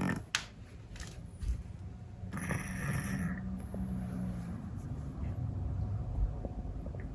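Scottish Fold cat snoring, with one longer rasping snore about two and a half seconds in.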